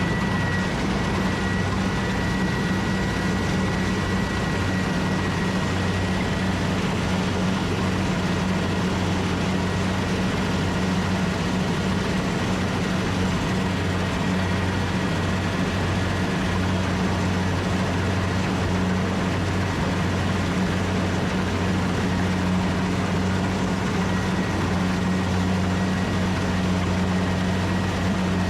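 Diesel engine of a rice combine harvester running steadily at a constant speed, with a faint high whine over the low engine note.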